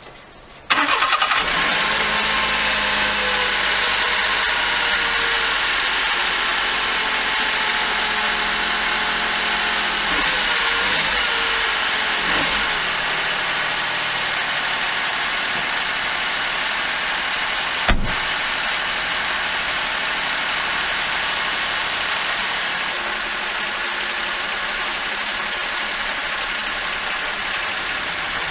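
Mitsubishi Minica H42V's three-cylinder engine started about a second in, catching at once and then idling steadily, its level easing slightly as it settles. There is a single sharp knock about two thirds of the way through.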